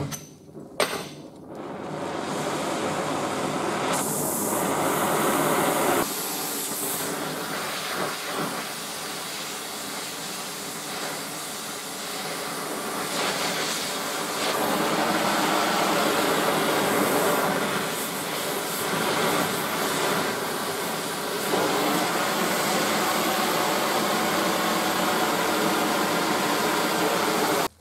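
Oxy-acetylene cutting torch, lit with a short pop about a second in, then hissing steadily, its sound changing several times as the flame is adjusted and a steel bar is cut.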